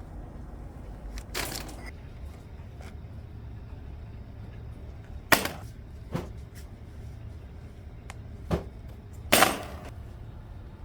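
Shop ambience: a steady low hum with a few scattered sharp clacks and knocks of items being handled. The loudest comes about five seconds in, and a longer rattling one near the end.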